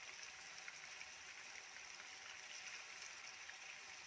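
Faint sizzling of chicken pieces frying in hot oil in a kadai: a steady hiss with small crackling pops.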